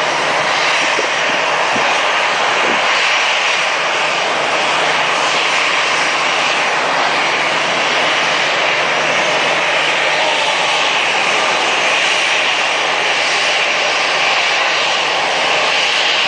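Airbus A380 jet engines during a low pass overhead: a loud, steady rush of jet noise that does not let up.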